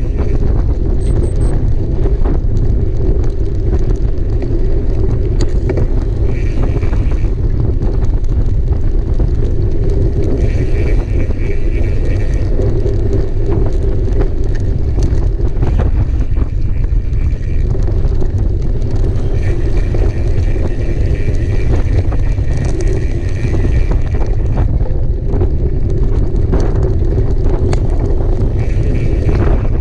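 Mountain bike ridden at speed: steady wind noise on the microphone with the bike rattling and clicking over rough ground, and in several stretches of a few seconds the rear freewheel hub buzzing while the rider coasts.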